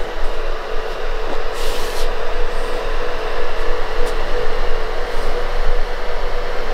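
Cooling fans of a rack of Dell PowerEdge servers and network gear running: an even rush of air with a steady hum at one pitch. A brief hiss about a second and a half in.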